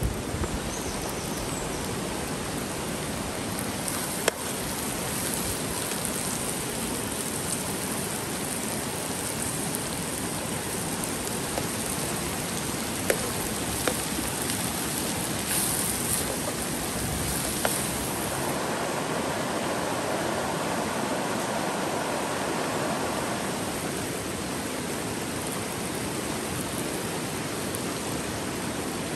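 Steady rushing of a flowing stream, with a few sharp clicks over it.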